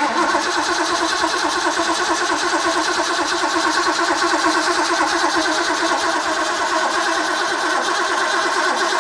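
Freshly rebuilt carbureted engine on a test stand, cranked steadily by its starter with the ignition coil off, so it turns over without firing. It is being spun to build oil pressure and draw fuel up to the carburetor bowls before the first start.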